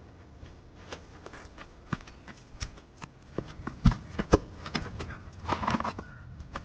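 A run of irregular clicks and knocks, with two sharp knocks near the middle standing out, like hands working with sticks and wood.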